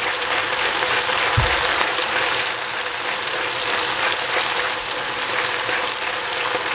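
Bok choy frying in hot oil in a stainless steel pot, a steady sizzling hiss, with a single low thump about a second and a half in.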